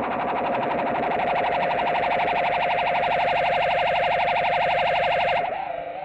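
Electric guitar through an Electro-Harmonix Polyflange set to chorus with the blend off and every control at maximum. This gives pure vibrato: a held note wobbling fast in pitch, siren-like. A little over five seconds in, it drops to a quieter, slower warble.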